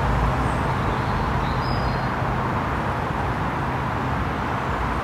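Steady outdoor noise of wind buffeting the microphone together with road traffic running by, a constant low rumble under a hiss.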